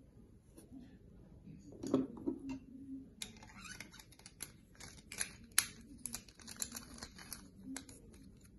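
Hard plastic parts of an electric pencil sharpener's cutter assembly being handled and taken apart: a knock about two seconds in, then a run of quick, irregular clicks and rattles.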